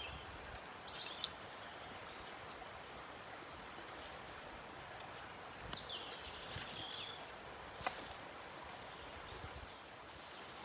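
Forest ambience: a steady hiss of outdoor background noise with brief high bird chirps now and then and a few sharp clicks or snaps.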